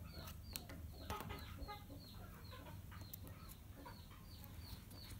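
Faint, repeated bird chirping: short falling chirps about three a second, with a few light clicks as a wire lead is pushed into a tool battery's terminals.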